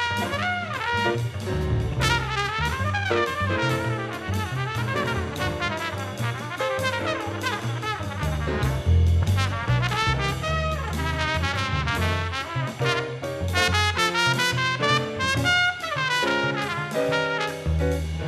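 Jazz quartet playing live: a trumpet soloing over grand piano, double bass, and a drum kit with cymbals.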